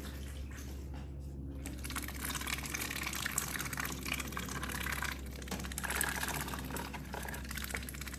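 Ducks dabbling their bills in a shallow trough of water and feed: fast wet splashing and slapping that starts about two seconds in and keeps going.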